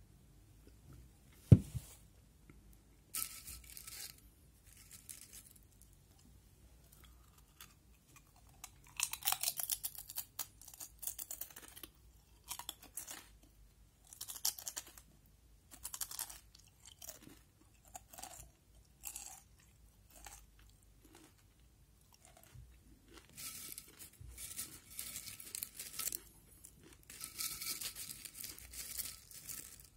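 Crisps being chewed close to the microphone, in irregular bouts of loud crunching that grow denser near the end. There is one sharp knock about a second and a half in.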